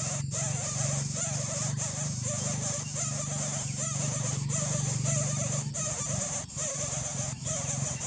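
Coucal nestlings in the nest giving wavering, repeated begging calls over a steady high-pitched hiss.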